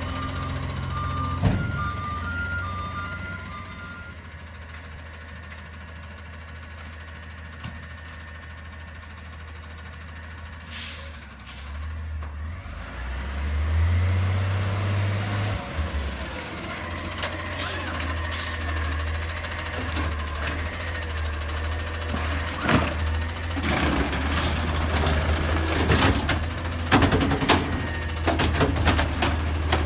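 Natural-gas Autocar ACX garbage truck with a McNeilus ZR side-loading body. A backup alarm beeps for the first few seconds; after a quieter stretch the engine rises as the truck drives up. Air-brake hisses and clanks follow as it stops at the carts.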